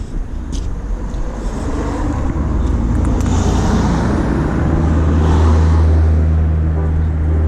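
A vehicle passing close by: a steady low hum and a wash of noise that swell to a peak about six seconds in.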